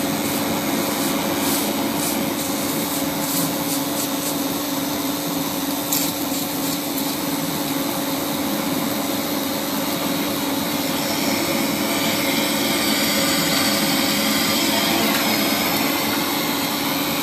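Polygon pole welding machine running: a steady hum over a broad hiss, with a few faint ticks in the first few seconds.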